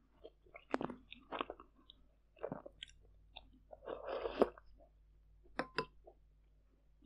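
Close-miked wet chewing and mouth smacks from eating fermented sweet rice soup with glutinous rice balls. About four seconds in, a spoonful is slurped in, the loudest sound, followed by more chewing.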